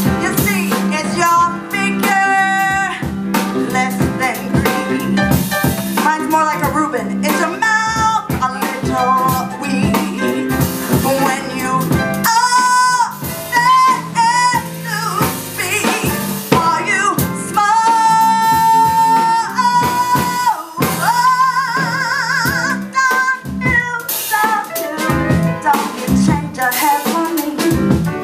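A woman singing a jazz ballad live, with long held notes and wide vibrato, backed by piano and electric bass.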